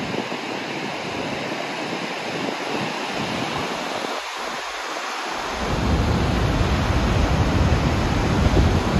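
Dettifoss waterfall pouring into its canyon: a loud, steady rushing noise. About halfway through, wind gusts hit the microphone and add a deep buffeting rumble.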